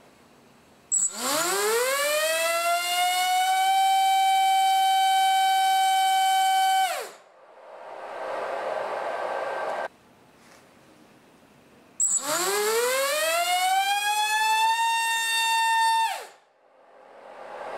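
HypeTrain Grinder 2306 2450KV brushless drone motor spinning a two-blade KK 6040 propeller on a thrust stand, run up to full throttle twice. Each run is a whine that rises in pitch for about three seconds, holds steady, then cuts off sharply. The second run, on a 4S battery, holds at a higher pitch than the first on 3S, at about 27,000 RPM and 50 A.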